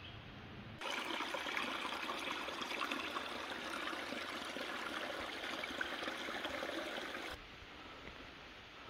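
Shallow rocky mountain stream trickling over stones. It starts suddenly about a second in and cuts off suddenly near the end.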